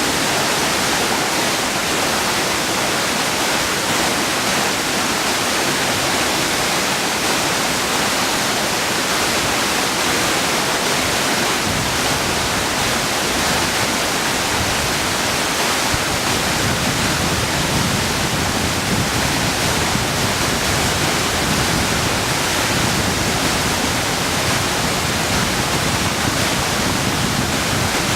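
A waterfall dropping in several steps over blocky rock ledges: a steady, loud rush of falling water, with a deeper rumble filling in from about halfway through.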